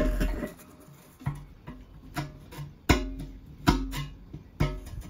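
Background music: plucked guitar notes picked out one after another, a new note or chord about every second.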